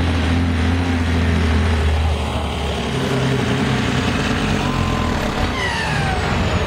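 Kenworth semi tractor's diesel engine running hard under load while pulling a weight sled, a loud low drone that weakens about two seconds in as the pull eases off.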